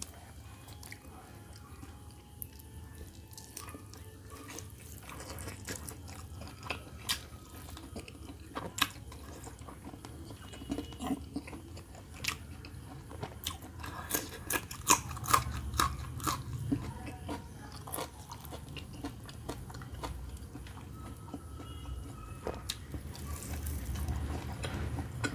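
Close-miked eating sounds: a person chewing and biting roast chicken and raw green chillies, with scattered sharp crunchy bites, the loudest about fifteen seconds in.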